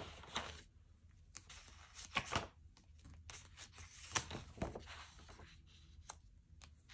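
Pages of a disc-bound planner being turned by hand: soft paper rustling and sliding, broken by several sharp, crisp flicks as the sheets swing over on the discs.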